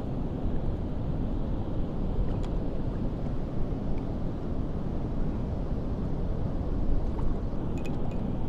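Steady low rushing of wind buffeting the microphone over moving river water, with a couple of faint clicks.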